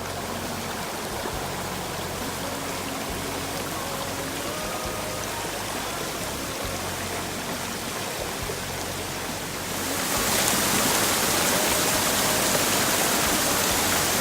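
Steady rush of water, turning louder about ten seconds in, with faint background music underneath.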